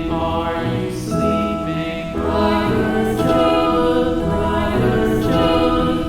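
Slow background music of sustained chords that change every second or two.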